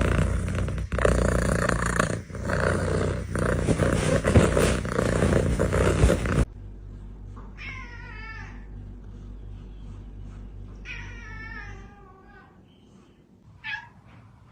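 A domestic cat meowing: two drawn-out meows that waver in pitch, then a short one near the end. The first six seconds are a loud, rough noise from another source before the meows begin.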